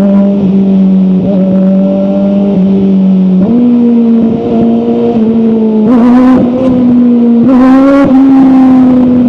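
QJMotor sport bike's engine running at a steady idle, the idle rising slightly a few seconds in, with two short throttle blips, one just past the middle and one near the end.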